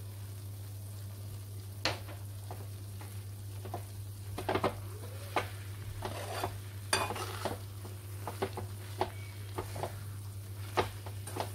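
Steel spatula stirring grated coconut, sugar syrup and ghee in a metal kadhai, with scattered scrapes and clinks against the pan from about two seconds in, over a steady low hum. The ghee is being worked into the mixture as it cooks down to set as barfi.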